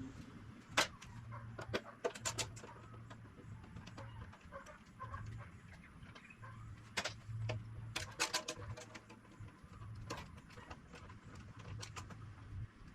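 Scattered clicks and light knocks of bolts, clips and plastic parts being handled while a scooter's windscreen is unbolted, over an intermittent low hum.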